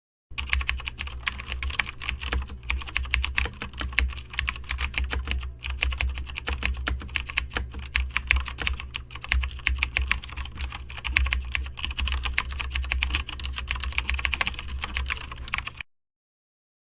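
Rapid computer-keyboard typing: a fast, uneven run of key clicks over a steady low hum, cutting off abruptly near the end.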